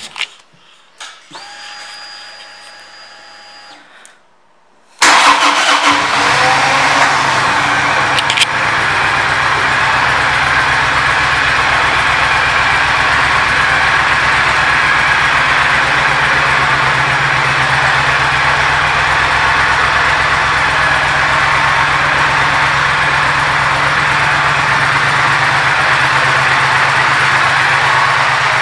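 2012 Triumph Thunderbird Storm's parallel-twin engine: a faint whine for a few seconds after the ignition is switched on, then about five seconds in the engine starts. It runs a little high and uneven at first, then settles into a steady idle.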